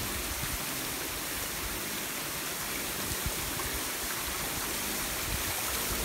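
Steady rushing of a tall, thin waterfall pouring down a rock face.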